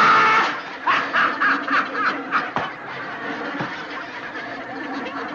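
A man laughing hard in short repeated bursts, loudest in the first couple of seconds and then trailing off.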